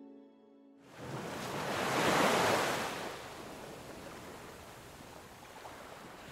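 Small waves washing in over rocks and sand, one swell rising and falling about two seconds in, then a steady lower wash. A held music chord fades out in the first second.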